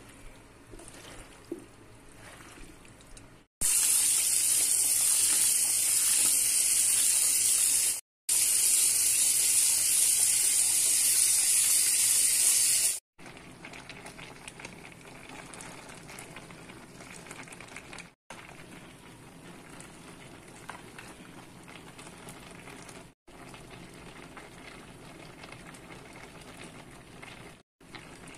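Kaong (sugar palm fruit) boiling in a steel pot, with a low bubbling and faint crackles. For about nine seconds near the start a loud, high steady hiss covers it. The sound cuts out briefly several times.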